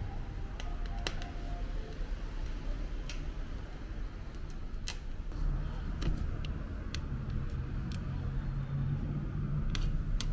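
Gorilla tape being pulled off the roll and wound around a metal cart frame: scattered crackles and ticks. Underneath is a low steady hum that gains a droning tone about halfway through.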